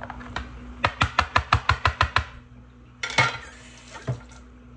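Plastic manual vegetable chopper and its container of freshly diced onion being handled: a quick run of about ten light plastic knocks about a second in, then two short scraping rattles.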